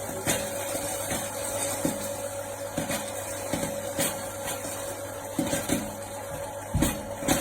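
Electric popcorn machine running with a steady motor hum, with popping kernels giving short sharp pops at irregular intervals, a cluster of them near the end.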